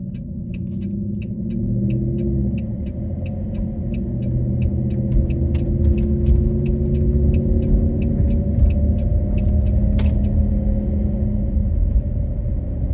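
A car driving: a steady low rumble of engine and road, with the engine's pitch slowly rising and falling. A fast regular ticking, about three to four a second, runs alongside and stops with a click about ten seconds in.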